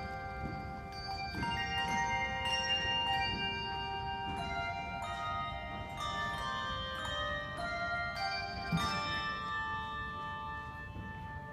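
A handbell choir playing a piece: brass handbells rung one after another, each note ringing on and overlapping the next.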